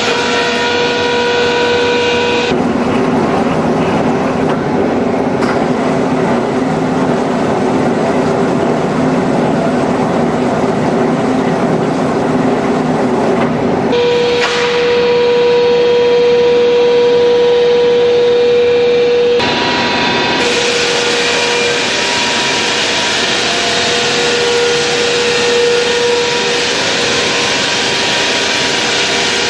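Sawdust-making machine running with a steady, loud hum and whine over a rushing noise. The sound changes abruptly about two seconds in, near the middle and again a few seconds later.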